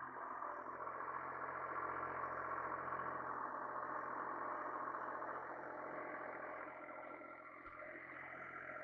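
International Harvester 385 diesel tractor engine running steadily while pulling a rotary cutter (bush hog) through pasture grass.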